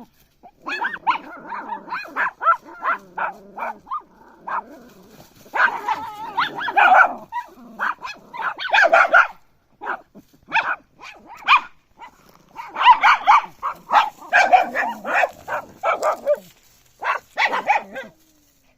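Puppy barking over and over: single short barks mixed with longer runs of rapid barking, stopping shortly before the end.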